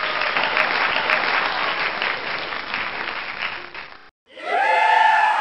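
Crowd applauding, cut off abruptly about four seconds in; after a brief gap a crowd cheers and yells with rising and falling voices.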